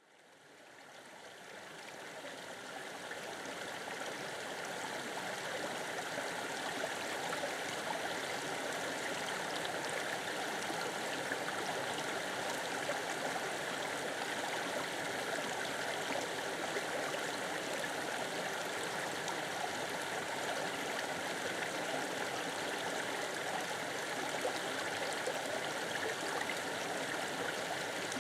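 Stream water flowing steadily, a continuous rush and babble that fades in over the first few seconds and then holds level.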